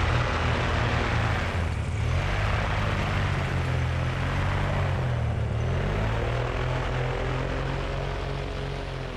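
Tandem paramotor trike's engine and pusher propeller running at low power on the ground, with a steady rush of propeller wash. The engine note rises about two seconds in, dips briefly a little past halfway and picks up again, then fades out near the end.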